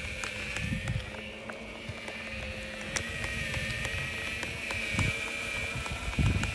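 Evolve GTR electric skateboard rolling in a straight line, its motors whining steadily over a low road rumble, with irregular sharp knocks: the strange knocking that the rider says happens only on the straight and stops when turning. The rumble gets heavier near the end, with wind on the microphone.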